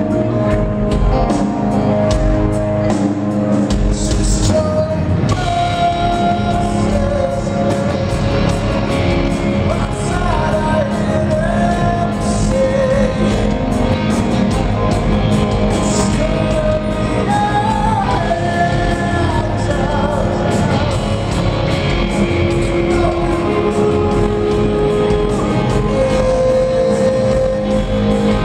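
Rock band playing live: a man singing over electric guitars and drums, recorded from the audience in a concert hall.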